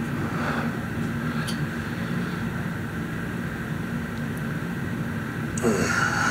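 Steady droning background noise with a constant low hum, with a few faint ticks and a brief louder sound near the end.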